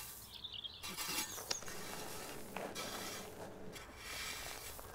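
Faint scraping of a shovel and a rake spreading paving grit, with a few light clicks of stones.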